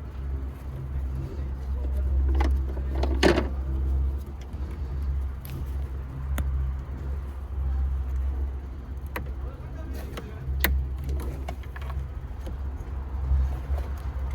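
Car engine running with a steady low rumble, with scattered irregular clicks and one louder knock about three seconds in.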